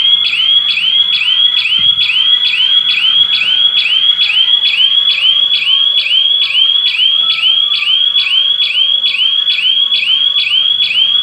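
Electronic siren of a triggered GSM burglar alarm sounding loudly, signalling a detected security breach: a shrill chirp that sweeps up in pitch, repeated evenly about three times a second.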